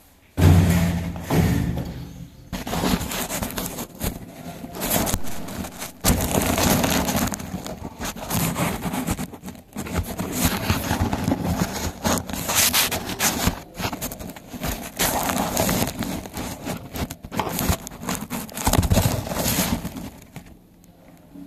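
Handling noise from the phone that is recording: a sudden loud knock about half a second in, then irregular rubbing, scraping and clicks as fingers move over and around the microphone, dying down near the end.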